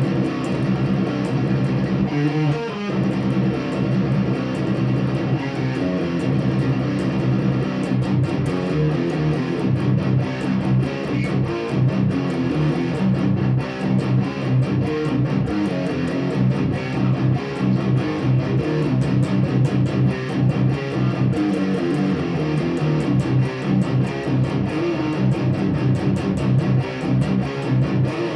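Electric guitar played continuously through a Boss Katana 50 MKII amplifier on its Lead channel, plugged straight into the amp without a pedal.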